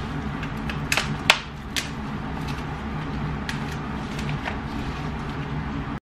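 Kitchen counter handling at an electric contact grill: a few sharp clicks and knocks of utensils and food, the loudest just after a second in, then lighter ticks, over a steady low hum.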